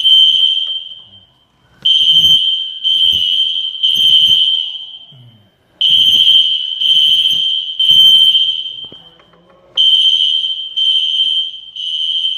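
Building fire alarm sounding loudly in the temporal-three evacuation pattern: three high-pitched beeps about a second each, then a short pause, repeating, the last beep of each group trailing off.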